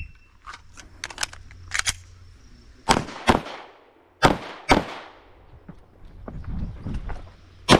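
Handgun shots fired by a competitor running a timed IPSC stage. There are a few fainter sharp cracks in the first two seconds, then two quick pairs of loud shots about three and four seconds in, and another loud shot right at the end.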